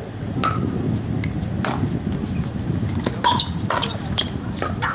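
Pickleball paddles striking a hard plastic ball in a doubles rally: a string of sharp pocks, starting with the serve about half a second in and coming faster in the second half as the players trade shots at the net.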